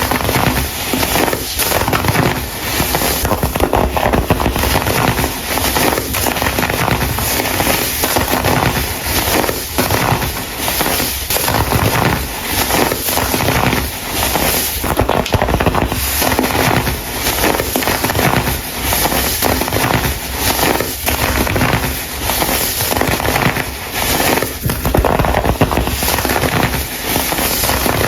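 Dried, coloured baking soda chunks being crushed and crumbled, a dense run of crunching and crackling without pause.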